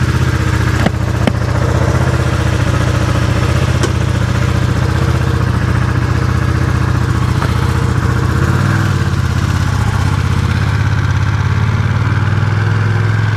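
Ducati Streetfighter V2's 955 cc V-twin engine idling steadily just after starting up, with a few brief clicks near the start.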